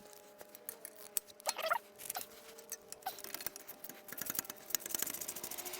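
Ratchet wrench clicking in quick, even strokes as the lower caliper bolt on the front brake is worked loose, with scattered small metallic ticks from the tools on the bolt.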